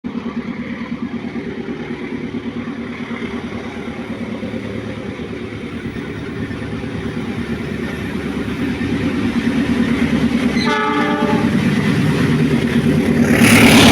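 Diesel-electric CC206 locomotive approaching, its engine running steadily and growing louder. A short horn blast comes about three-quarters of the way in, and a loud rush of the train passing close begins near the end.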